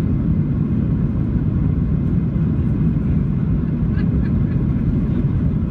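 Steady low rumble of engine and airflow noise heard inside the economy cabin of a Boeing 737-700, its CFM56-7B jet engines running.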